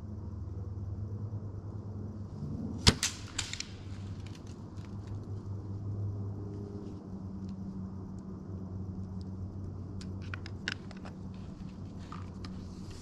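A bow fired by accident during a let-down, about three seconds in: one sharp, loud snap of the string as the arrow is released, followed by a few lighter knocks.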